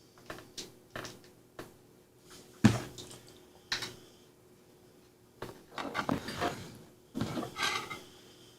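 Small parts of a trouble light being handled and fitted together during reassembly: scattered light clicks, a louder knock a little under three seconds in, then two short bursts of clattering in the second half.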